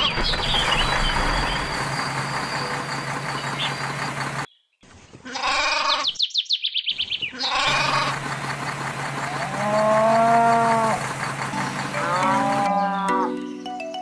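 Farm-animal sound effects: a quavering bleat about five seconds in and a drawn-out cow moo about ten seconds in, over a steady noisy farmyard background that cuts out briefly between them. Music with stepped notes comes in near the end.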